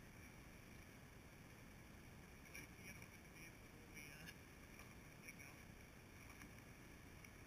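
Near silence: faint, steady outdoor background hiss, with a few faint short high-pitched sounds scattered through it.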